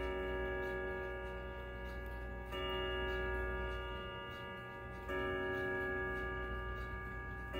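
1994 Howard Miller Jennison triple-chime wall clock striking the hour at twelve: three strikes about two and a half seconds apart, each a ringing metallic chord that carries on until the next. The movement's ticking is faintly audible underneath.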